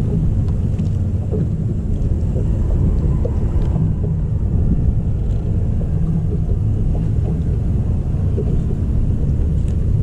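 Wind buffeting an action camera's microphone on an open boat: a loud, steady low rumble that rises and falls, with a few faint ticks.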